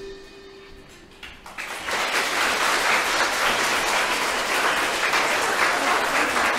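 The last note of a song dies away, and about a second and a half in an audience breaks into steady applause.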